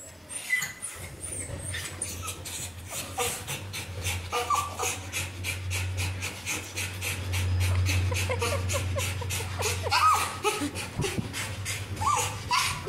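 A dog panting rapidly and rhythmically, about four to five breaths a second, over a steady low hum.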